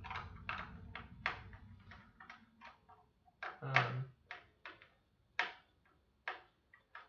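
Irregular clicks and knocks from hard plastic fire alarm hardware and wiring being handled, about fifteen small sharp sounds scattered over several seconds.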